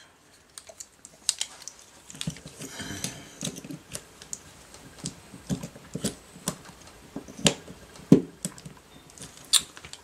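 A hand tool working and prying at the metal and plastic parts of an X-ray controller joystick assembly: irregular sharp clicks and scrapes, several a second, with duller handling rumble about two to four seconds in.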